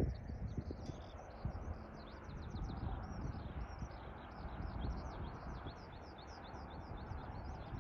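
A songbird singing a long, fast run of high chirping notes, about five a second, over a low rumble of wind on the microphone.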